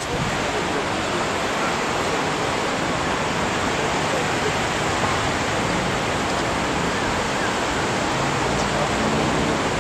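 A steady, even rushing noise, unbroken throughout.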